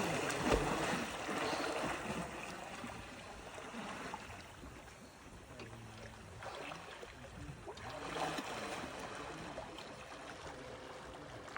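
Water sloshing and splashing close to a phone held at the water's surface, with a knock about half a second in.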